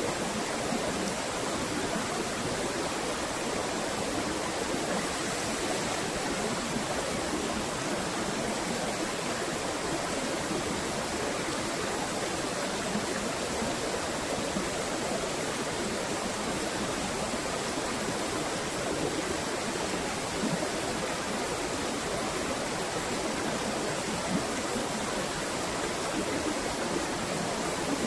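Rushing water, steady and unbroken, with no pauses or separate strikes.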